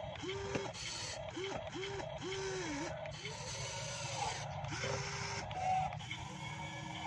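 Electric motors and gearboxes of a radio-controlled Kobelco SK200 model excavator whirring as the arm and boom are worked. The whirs come in a string of short strokes, each rising and falling in pitch, with a steadier one near the end.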